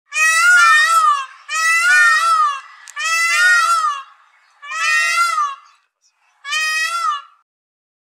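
Indian peafowl (peacock) giving five loud calls in a row, each about a second long and rising and falling in pitch twice, ending about a second before the end.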